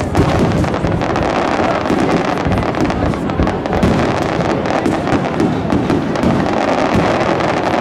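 Aerial fireworks display: many shell bursts and crackles going off close together with no pause.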